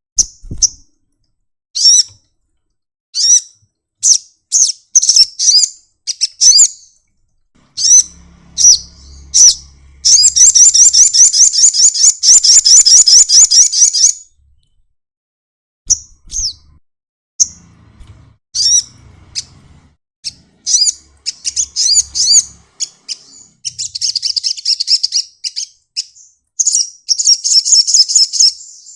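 Sunbird singing: a string of short, high chirps, breaking into a fast, high trill about ten seconds in that lasts some four seconds, then more rapid trilling near the end.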